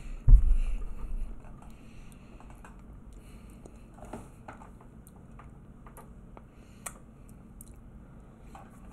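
A heavy low thump just after the start, then scattered faint clicks and crunches of someone chewing food close to the microphone.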